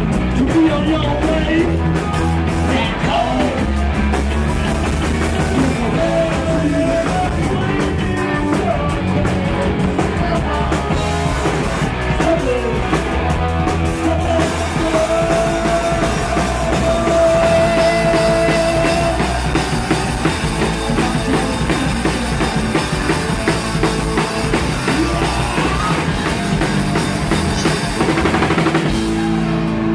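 Punk rock band playing live: electric guitar and drum kit, loud and continuous.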